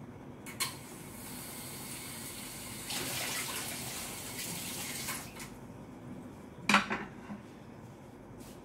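Water running or splashing in a kitchen, strongest about three to five seconds in, then a single sharp clink of metal cookware near the end.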